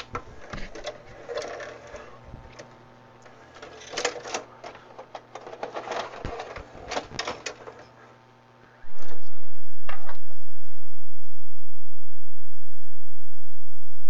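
VHS deck loading mechanism handling a cassette: irregular clicks and short motor whirs as the tape is pushed in and drawn down onto the mechanism. About nine seconds in, a loud steady hiss starts suddenly and drowns the mechanism out.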